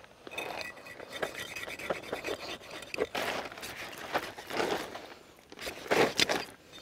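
A knife cutting and sawing through the tail of a large stingray in irregular scraping strokes. The strongest strokes come about three, four and a half, and six seconds in.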